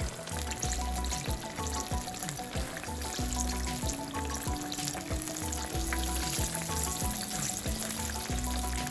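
Batter-coated eggplant slices deep-frying in oil, a steady crackling sizzle, under background music with a regular beat.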